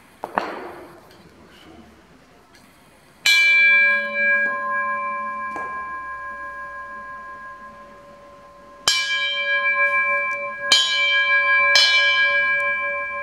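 Hand-forged iron sound bowl struck with a small hammer, ringing with several steady overtones that fade slowly. It is struck once about three seconds in, then three more times close together in the second half, after a brief knock at the start.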